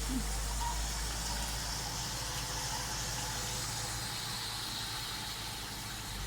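Washing machine running with water in the tub: a steady mechanical hum under a rushing noise that eases off slightly toward the end.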